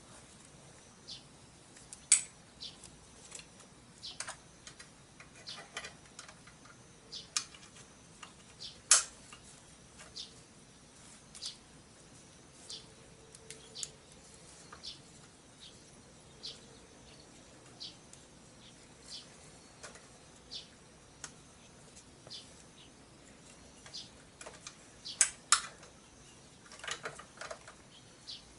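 Irregular small clicks and taps of hand tools and parts against a motorcycle engine as it is worked on by hand. A few sharper knocks stand out, including two close together near the end.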